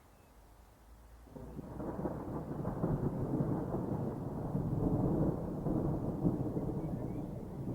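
Rolling thunder: a low rumble that starts about a second in, swells, and carries on.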